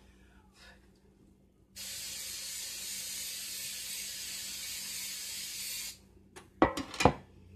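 Aerosol nonstick cooking spray hissing in one steady spray of about four seconds as a baking pan is greased, cutting off sharply. About a second later come two sharp knocks.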